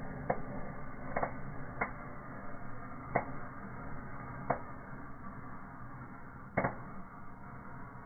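Fireplace fire burning with indoor fireworks: the flames give a steady low noise, broken by about six sharp cracks and pops at irregular spacing. The biggest crack comes about six and a half seconds in.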